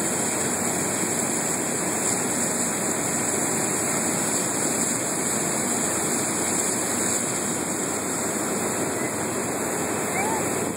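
Steady rushing hiss of fire hose streams spraying water fog onto a burning propane tank, mixed with the rush of the propane flame.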